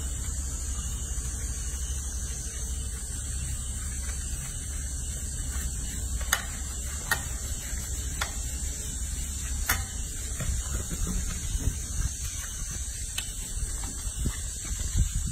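Baby monkey being washed in a sink of soapy water: a steady hiss with a low hum throughout, a handful of short sharp squeaks spaced a second or so apart around the middle, and water starting to slosh near the end.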